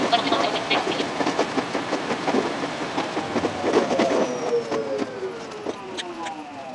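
A 521-series electric multiple unit running on jointed track, with dense wheel clicks over the rails. From about four seconds in, the traction motor whine falls steadily in pitch and the running noise fades as the train brakes into a station.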